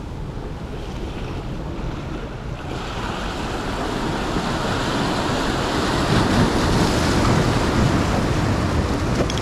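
Sea surf washing over the rocks of a breakwater, swelling louder about three seconds in, with wind buffeting the microphone.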